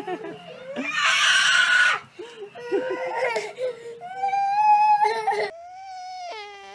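High-pitched, wavering crying-like calls with a loud shrill squeal about a second in and a long held cry in the middle; after a cut near the end, a pit bull-type dog whines.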